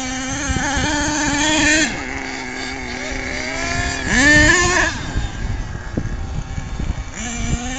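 Small nitro engine of a radio-controlled monster truck running at high revs with a high, buzzing note. It eases off about two seconds in, revs up sharply and loudest about four seconds in, then drops back.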